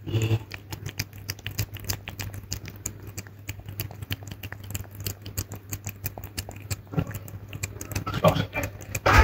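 A cat eating soft wet mousse cat food from a stainless steel bowl: quick, irregular wet chewing and lapping clicks, several a second.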